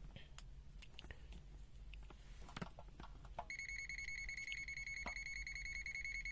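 A few faint taps of a test probe, then about three and a half seconds in the ZOYI ZT-M2H multimeter's buzzer starts a steady high-pitched beep, its live-wire warning as the test lead touches the hot wire.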